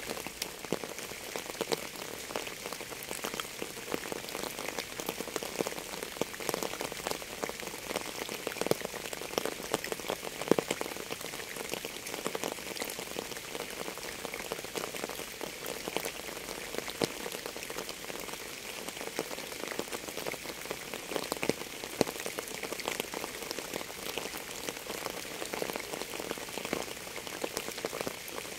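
Steady rain falling on a surface, with many individual drops tapping close by over an even hiss.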